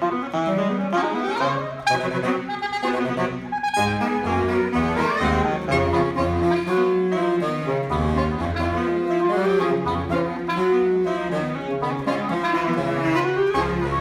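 Saxophone quartet of soprano, alto, tenor and baritone saxophones playing live, with a low baritone line in short repeated notes under sustained upper voices.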